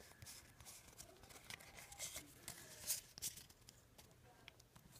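Faint rustling and light clicks of trading cards being handled and shuffled through.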